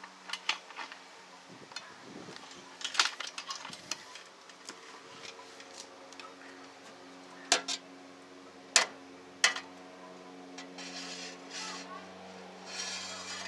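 A steady low mechanical hum with several sharp knocks and clicks over it, the loudest about three, seven and a half and nine seconds in, and short bursts of hiss near the end.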